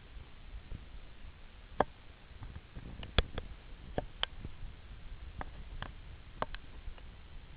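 About ten sharp clicks and ticks, irregularly spaced and bunched in the middle, over a steady low rumble.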